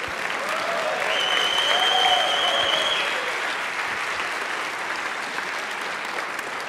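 Audience applauding, swelling to its loudest about two seconds in and then slowly easing. A held high whistle runs over the clapping from about one to three seconds in, with a few cheers under it.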